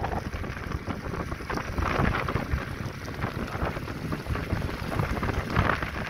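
Water rushing and splashing along the hull of a moving boat, with wind buffeting the microphone; the rush swells about two seconds in and again near the end.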